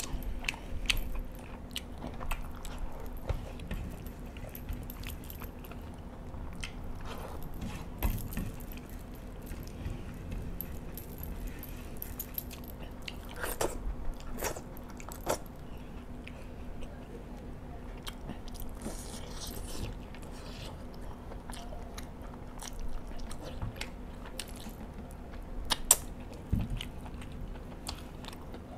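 Close-miked chewing and wet lip-smacking while eating spicy chicken by hand, with irregular short clicks and smacks over a faint steady hum.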